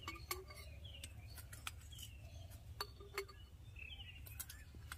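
Faint, irregular clinks of a metal spoon against a steel bowl and a glass jar as oily mango pickle is spooned into the jar. Small birds chirp faintly in the background.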